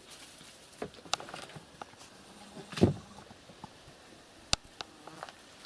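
Scattered light knocks and rustles of movement on wooden porch boards, with one louder thump about three seconds in and a sharp click a second and a half later.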